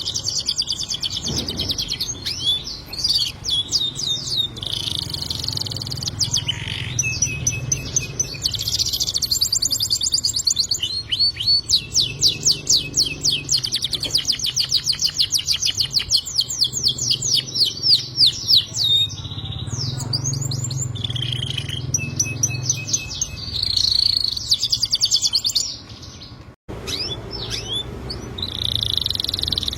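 Domestic canary singing a long, continuous warbling song, with a long stretch of fast repeated trill notes in the middle. A faint low hum runs underneath.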